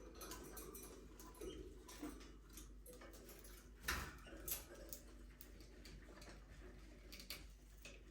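Budgerigars in an aviary making faint scattered ticks and scrapes, as of claws and beaks on perches and cage, with a sharper click about four seconds in and a few soft chirps.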